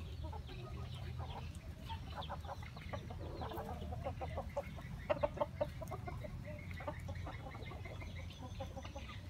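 Chickens clucking in wire cages, in several short runs of quick clucks, over a steady low rumble.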